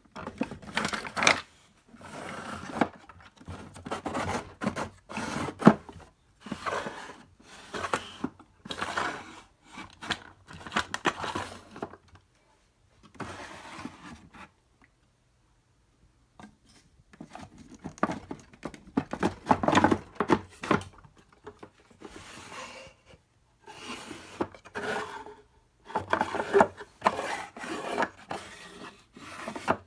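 Small wooden drawers of a watchmaker's tool chest being slid open and shut one after another, wood scraping on wood with an occasional sharper knock. There is a pause of about two seconds about halfway through.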